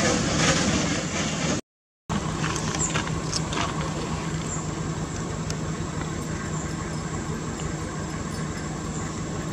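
A steady low mechanical hum with a thin high whine above it, broken by a half-second drop to silence about two seconds in, with a few faint clicks just after.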